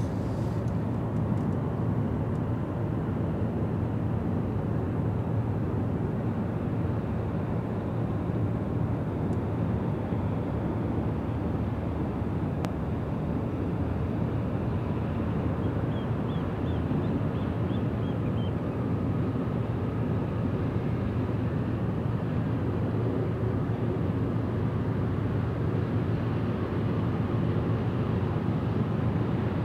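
Deep, steady engine drone of a passing ro-ro cargo ship, a low hum with a noisy wash over it that holds level throughout.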